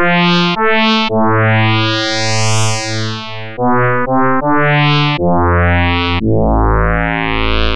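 NHTSynth software synthesizer, voiced by a nested trigonometric and hyperbolic expression, playing a short melodic phrase of about eight notes. Two of the notes are long and held, and the phrase ends on a long low note. In each note the brightness swells and fades back as the expression's variables sweep through the attack, sustain and release settings.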